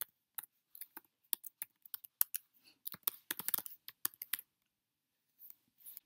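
Computer keyboard typing a username and password: a run of quick, irregular key clicks for about four and a half seconds, then a couple of faint clicks near the end.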